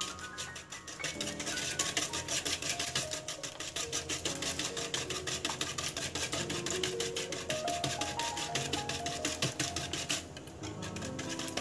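Whisk beating eggs and sugar in a mixing bowl: rapid, even scraping strokes that stop about ten seconds in, over background music.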